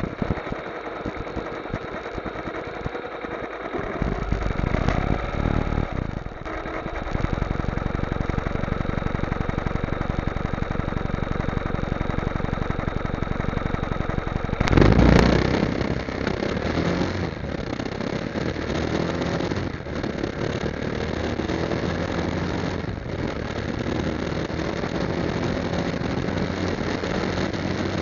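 Motorcycle engine running: idling at first, then running louder and steadier as the bike moves off. A brief loud surge comes about halfway through.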